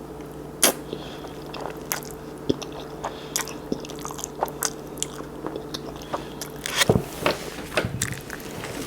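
A person chewing food close to the microphone, with irregular short mouth clicks, over a steady low hum that stops about seven seconds in.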